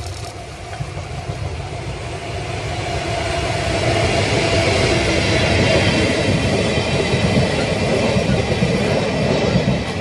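An ED75 electric locomotive and its train of passenger coaches passing close by. The rumble and clatter of wheels on the rails grows louder over the first few seconds and then stays loud as the coaches roll past.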